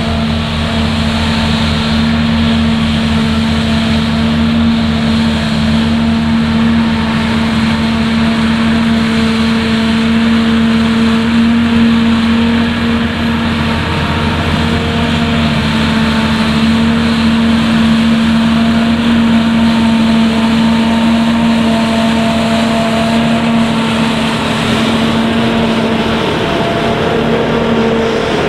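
Small narrow-gauge diesel locomotive engine running loud and steady at an even pitch as it hauls a train of peat wagons past.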